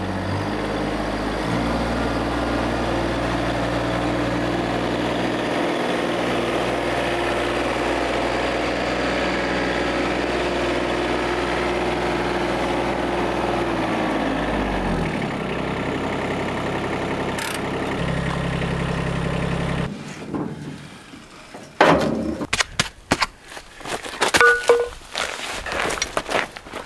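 Compact tractor engine running steadily, shifting pitch once near the start, then slowing and dying away about halfway through. After a short, different hum that cuts off, there is a run of irregular knocks and clatter as the cement mixer is handled.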